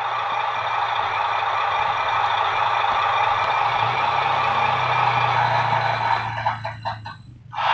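Sound module in a 1/35 scale M35 model military truck playing a truck engine sound through a small speaker, running steadily, then breaking up and cutting out near the end.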